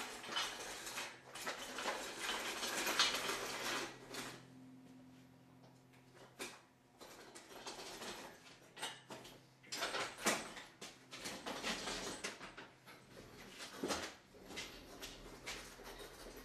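Irregular metal clattering, rattling and knocking as an engine stand carrying an engine is wheeled on casters across a concrete garage floor. There is a dense stretch of rattling for the first few seconds, then scattered knocks and clanks.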